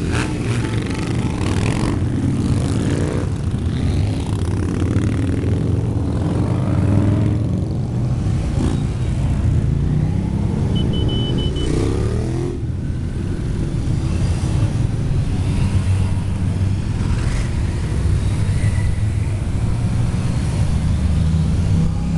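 A long procession of motorcycles, many of them cruisers, riding past one after another: a continuous mix of engines, with the pitch sweeping up and down as individual bikes rev and go by.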